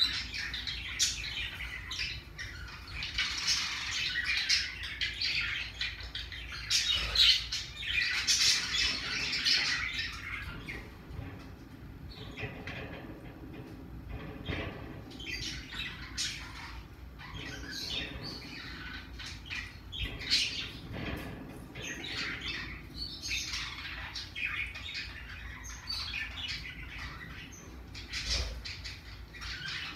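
Pacific parrotlet chirping and squawking in quick irregular bouts of short high calls, busiest in the first ten seconds and again after about twenty seconds, sparser in between.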